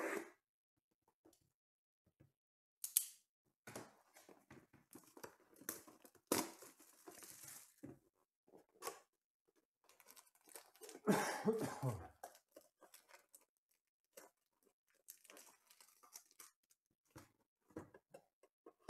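Hands opening a cardboard hobby box of trading cards and handling the foil packs inside: irregular tearing, crinkling and rustling with short snaps. There is a louder burst about eleven seconds in.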